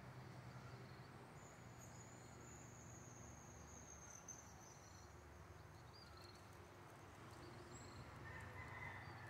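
Near silence: faint outdoor ambience with a low steady hum, and a faint high thin insect whine from about a second in until about four seconds in.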